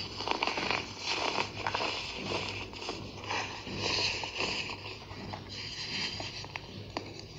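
Fingers crushing and crumbling balls of pink-dyed compressed baking soda: a dry, gritty crunching made of many small crackles, with the powder scraped and rubbed against a hard tabletop.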